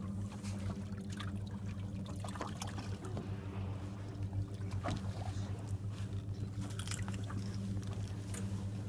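Boat engine running with a steady low hum, and short splashes and trickles of water over it.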